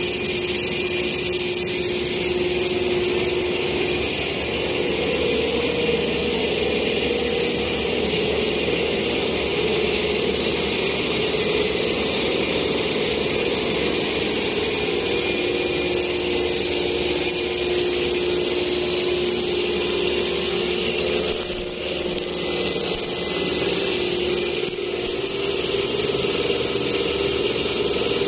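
Bubble-wrap production line running: a steady machine drone with a constant hum and a hiss over it, dipping slightly about three quarters of the way through.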